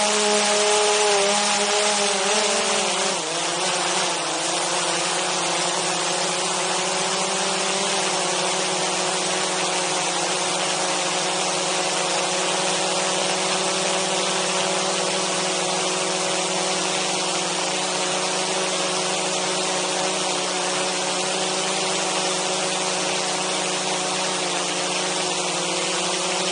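DJI Mavic 2 Zoom quadcopter's propellers and motors running close beneath the camera: a steady pitched drone of several tones. The pitch drops about three seconds in, then holds level.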